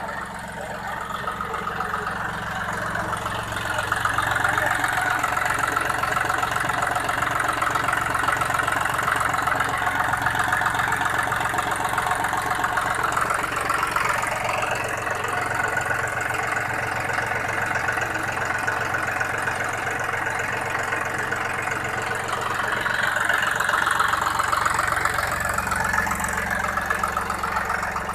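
John Deere 5310 tractor's three-cylinder diesel engine running steadily, louder from about four seconds in.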